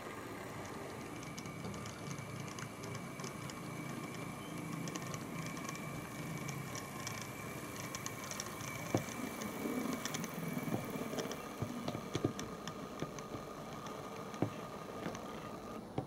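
OO-gauge model Class 08 shunter locomotive running on the layout: a faint steady motor whine, with light clicks and ticks from the wheels and couplers over the track and pointwork, more frequent from about halfway in.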